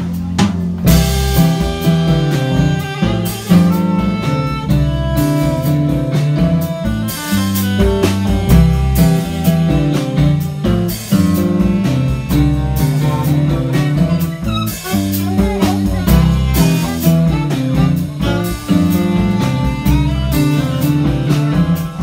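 Live band playing an instrumental passage, with saxophone, electric guitar, keyboard and a drum kit keeping a steady beat.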